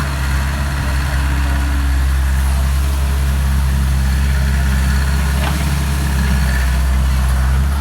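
Sumitomo SH60 excavator's diesel engine running steadily.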